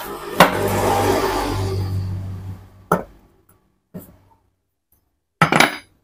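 Metal-on-metal work on a Bosch angle grinder's armature as the gear lock nut is undone by hand: a sharp click, then about two seconds of gritty scraping. A couple of single clicks and a short metallic clatter follow near the end.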